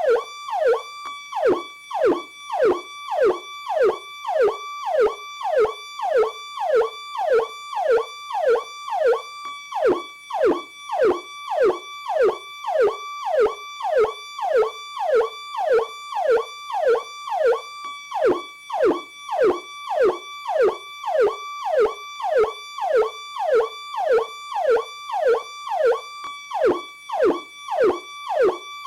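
Electronic police siren on its Powercall tone: a high tone held briefly, then swooping sharply down, repeating about twice a second.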